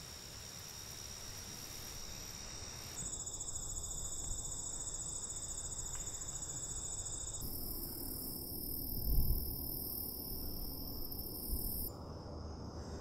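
Insects singing in summer grassland: a steady, high-pitched trilling chorus whose pitch and mix change abruptly about three and seven and a half seconds in. A short low rumble about nine seconds in is the loudest moment.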